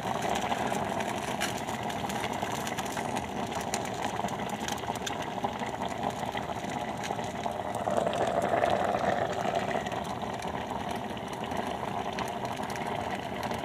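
Pot of rice boiling hard under a glass lid on an electric glass-top stove, a steady bubbling with small pops and ticks, swelling louder for a second or so about eight seconds in. The foaming water has been boiling over onto the hot burner, so the lid is set slightly ajar.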